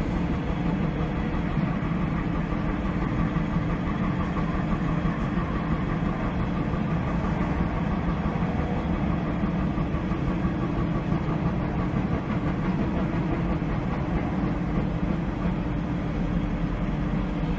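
Hydraulic excavator's diesel engine running steadily, a constant low drone with no knocks or impacts, while the bucket is moved slowly.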